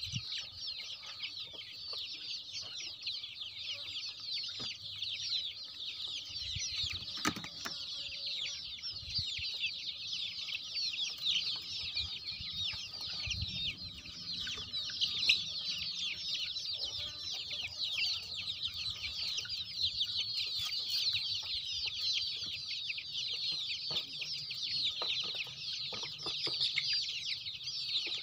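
A large flock of young country chickens peeping all together: a dense, continuous mass of high, short falling chirps.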